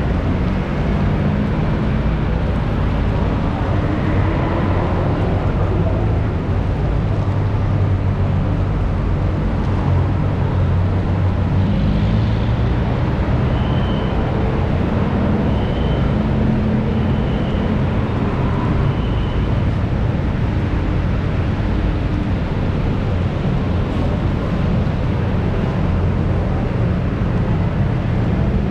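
Steady low rumble of vehicles running, with shifting low engine tones. Four short high tones sound about halfway through.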